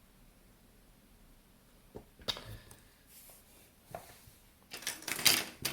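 Small plastic and metal parts of a disassembled digital camera handled on a workbench. There are a few light clicks about two seconds in and again around four seconds, then a quick run of louder clattering clicks near the end.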